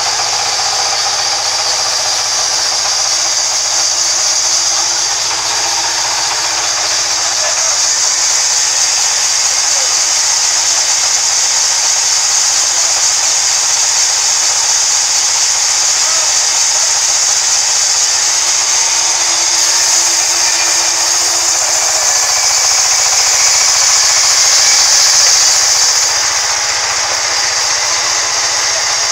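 Large sawmill band saw running and ripping lengthwise through a thick wooden slab. A loud, steady sawing noise with a strong high hiss.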